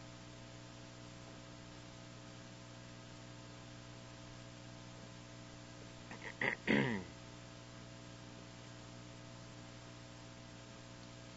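Steady electrical mains hum under faint hiss. About six and a half seconds in comes a brief voice sound, under a second long and louder than the hum.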